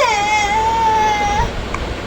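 A baby's high-pitched drawn-out cry or squeal, held at a steady pitch for about a second and a half and then stopping.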